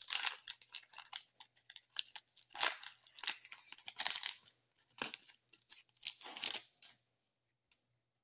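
Foil trading-card pack wrapper being torn open and crinkled by hand, a run of irregular crackles that stops about seven seconds in.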